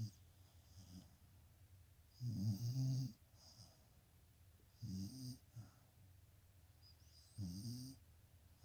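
A sleeping dog snoring: three snores about two and a half seconds apart, each under a second long, with a low rattly rumble and a hissy edge, some followed by a short softer breath.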